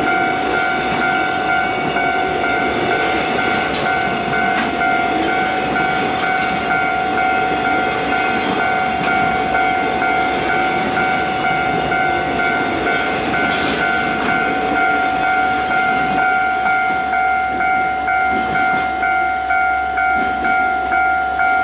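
Container freight train passing, its wagons rumbling and clicking over the rail joints. Over it a steady ringing tone pulses about twice a second.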